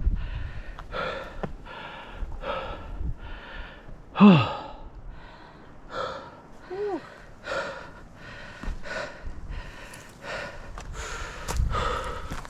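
A rider panting hard while pedalling uphill, with rapid breaths about two a second. About four seconds in comes a loud, falling vocal groan, the loudest sound here, and a shorter one near seven seconds.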